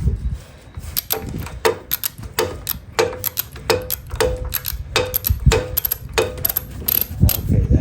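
Hammer blows on a stuck steel part of a Dana Super 60 front axle, roughly two a second, each strike giving a short metallic ring. They are knocking loose a part that would not come off by hand.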